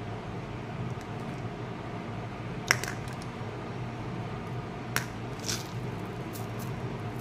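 A few sharp clicks and small rattles of a red plastic surprise-egg capsule, a little plastic toy and candy-coated chocolates being handled, the sharpest click about a third of the way in and another past the middle, over a steady low background hum.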